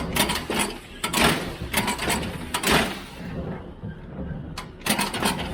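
The kicker pan (bale thrower) on a John Deere 348 baler being cycled through its throwing stroke as a function check: a series of loud swishing, rattling strokes, then a few sharp metallic clanks near the end, over a steady low engine rumble.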